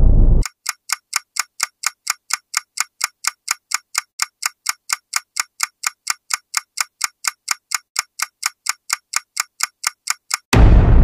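Countdown timer sound effect: clock-like ticking, about four ticks a second, then a sudden loud boom near the end. The tail of a previous boom cuts off about half a second in.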